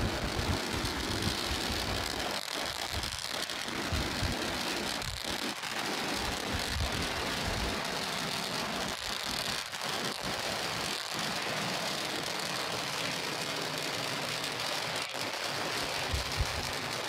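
Steady rumble and crackle of Starship's Raptor rocket engines firing during ascent.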